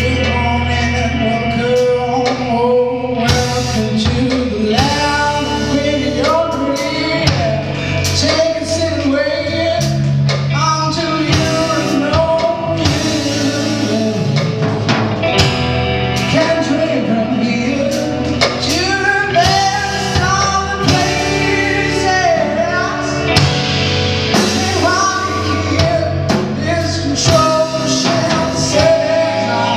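Rock band playing live, with electric guitar, bass guitar and drum kit, and a male voice singing over it.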